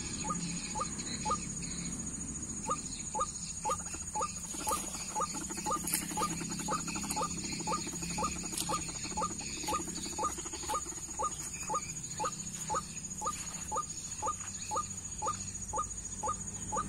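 White-breasted waterhen (ruak-ruak) calling: a long, steady run of short, sharp notes, about two a second, the bird's repeated territorial call.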